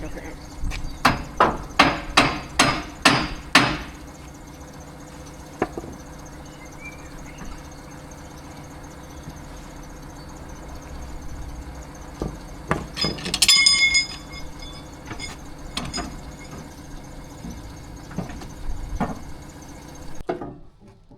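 Hammer blows on the steel tiller stock of a narrowboat's rudder, being knocked to free it: a quick run of about eight strikes between one and four seconds in, a ringing metallic clang around the middle, then scattered single knocks, over a steady low machine hum.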